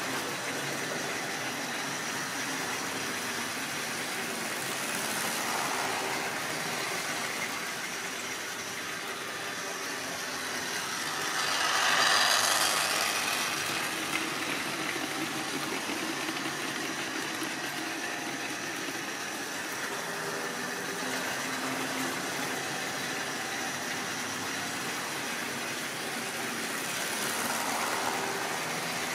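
Model train running round the layout: the locomotive's small electric motor whirring and the wagon wheels running on the rails, a steady mechanical running sound. It swells as the train comes close, loudest about twelve seconds in, with smaller swells near the start and near the end.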